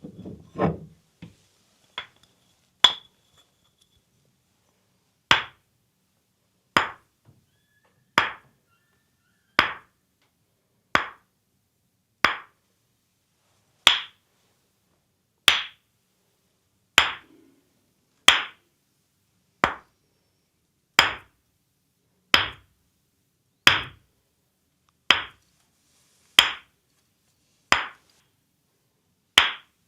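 A sharp knock with a brief high ring, repeated evenly about every second and a half, after a short rustle at the start.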